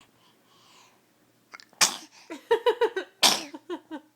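A small child sneezing twice, two sharp bursts about a second and a half apart, with short high-pitched voiced sounds between and after them.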